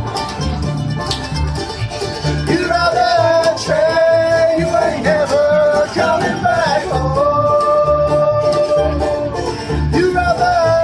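Bluegrass band playing live: banjo, acoustic guitar, mandolin and upright bass, with a steady plucked bass pulse. From about two seconds in, several voices sing long held notes in harmony.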